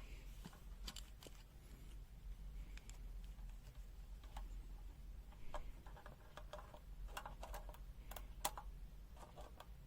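Faint, irregular clicks and light plastic knocks from a handheld digital multimeter and its test probes being handled, as the meter is set up for an AC voltage measurement. A low steady hum runs underneath.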